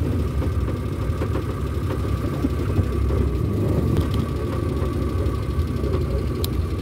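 Engine and road noise of a van heard from inside the cab while driving: a steady low rumble with a faint steady whine above it. A single short click near the end.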